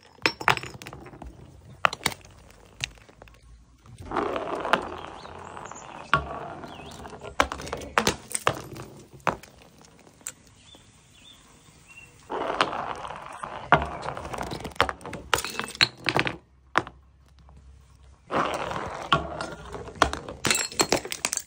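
Glass bottles and a glass jar hitting, rolling on and shattering against stone steps: many sharp clinks and hard knocks. Three longer noisy stretches, each starting with a hard hit, come about 4, 12 and 18 seconds in.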